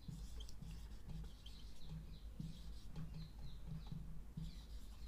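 Marker writing on a whiteboard: a run of short, high squeaks as each stroke of the letters is drawn.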